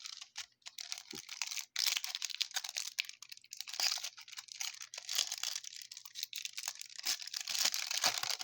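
A baseball trading-card pack wrapper being torn open and crinkled in the hands, a crackling rustle that goes on with only brief pauses.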